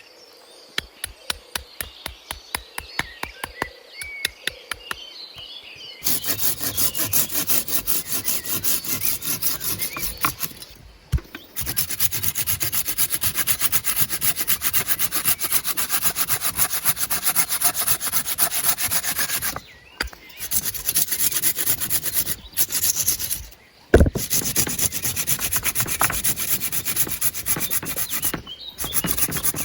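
A hand tool working wood with quick repeated rubbing strokes, like sawing or rasping. The strokes come separately at first, about three or four a second, then run faster and denser after about six seconds. Several sudden breaks cut them off.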